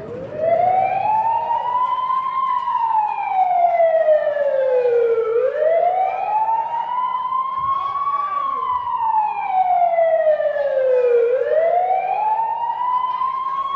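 A wailing siren sound effect played over the sound system, its pitch rising quickly and then sliding slowly back down, repeating about every six seconds.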